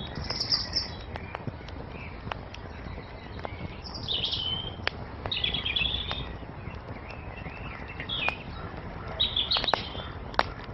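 Songbirds chirping in short twittering phrases, about five bursts, over a wood fire crackling with scattered sharp pops and a steady low rush.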